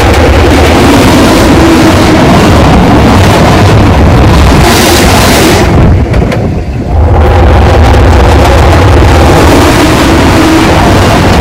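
Diesel locomotive hauling a passenger train, its engine running as it approaches, under steady wind noise on the microphone. The noise briefly drops away about six seconds in.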